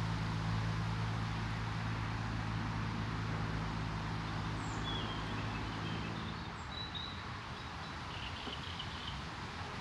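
A low, steady engine drone that fades out about two thirds of the way through, over an even background hiss, with a few faint bird chirps in the second half.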